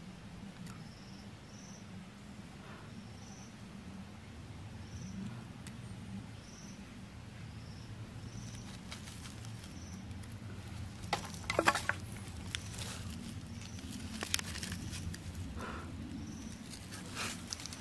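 Dry leaves and fibrous tinder crackling and rustling under the fingers as a coal is tucked into a tinder nest, in scattered bursts that are loudest a little past the middle. An insect chirps softly about once a second in the background.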